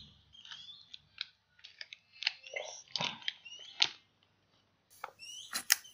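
Plastic packaging of a pickled yellow radish (danmuji) crinkling and crackling in irregular bursts as the radish is pulled out of the pack, with a few sharper snaps of the plastic.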